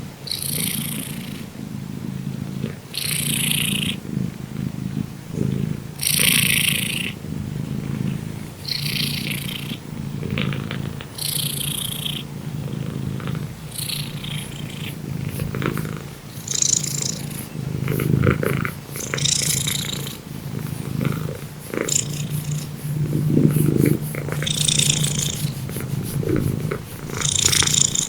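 A cat snoring loudly: a steady low rumble, with a hissy rasp on each breath about every two to three seconds, the rhythm growing less regular in the second half.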